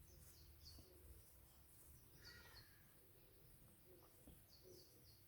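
Near silence with faint birds chirping now and then.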